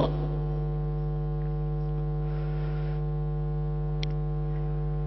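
Steady electrical mains hum with a stack of overtones, the buzz of the microphone and sound system. A faint short click about four seconds in.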